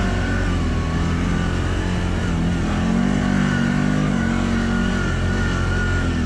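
CFMOTO ATV on Camso rubber snow tracks driving along, its engine running steadily with small rises and dips in pitch.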